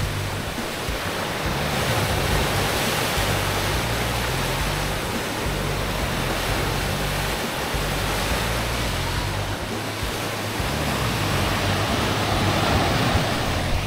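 Sea waves breaking against a stone seawall and rocks and washing back, a steady rush of surf.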